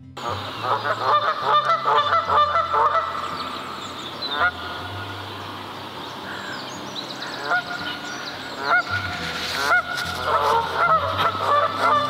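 Canada geese honking repeatedly, with a flurry of overlapping honks in the first few seconds, single honks in between, and another flurry near the end.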